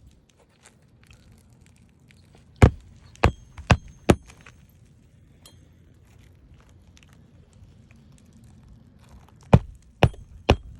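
Sharp knocks from hand work with a hammer and bar on an asphalt shingle roof, as shingles are lifted and pulled. Four quick blows come about half a second apart, then three more near the end.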